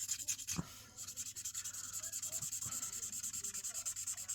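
Ink being rubbed onto cardstock in rapid back-and-forth strokes, about eight a second, with a soft knock about half a second in.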